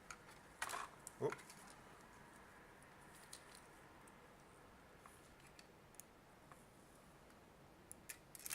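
Faint, scattered clicks and taps of small parts being handled as a multimeter is put back together, the sharpest one just before a second in.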